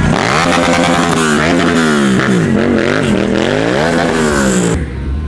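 Sport motorcycle engine revved up and down over and over, its pitch swinging up and falling back in quick repeated blips. It cuts off abruptly a little before the end, giving way to a duller, lower sound.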